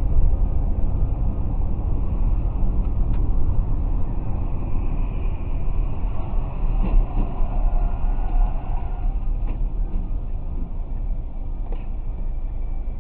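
Steady low rumble of tyres and engine heard from inside a car's cabin at highway speed, picked up by a dashcam, with a few faint knocks.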